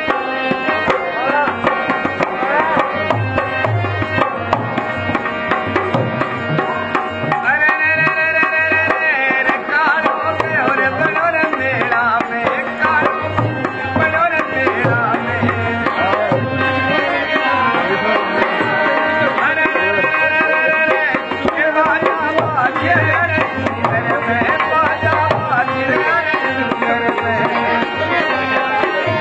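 Traditional Rajasthani folk music for a kathputli puppet show. A hand drum beats a steady rhythm under a wavering melody, with a few long held notes.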